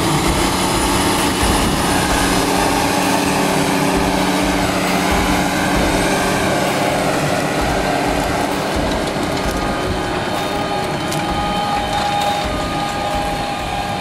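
Case IH Quadtrac 485 tracked tractor's diesel engine running steadily as it pulls an air seeder, a continuous drone.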